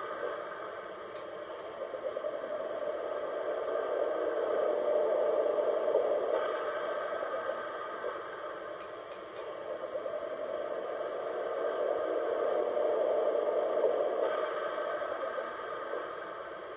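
Sound system of an MTH R142A Protosound 2 model subway car playing a standing-train ambient sound through its speaker: a rushing noise that slowly swells and fades, peaking about five seconds in and again about thirteen seconds in.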